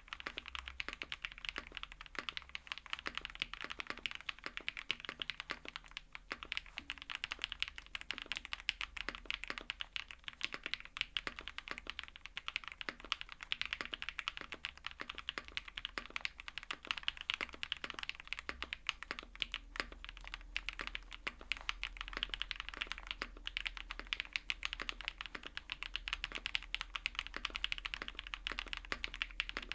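Continuous fast typing on a custom mechanical keyboard with Jerrzi Rouge linear switches: a dense, unbroken run of keystroke clacks.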